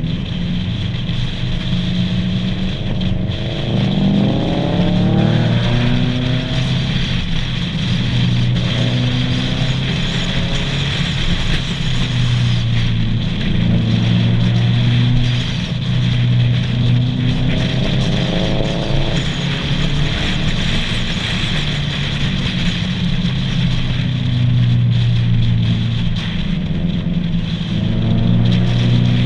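Subaru cars driving in a group, engines and exhausts running steadily and climbing in pitch a few times as they accelerate, over heavy wind buffeting on the microphone.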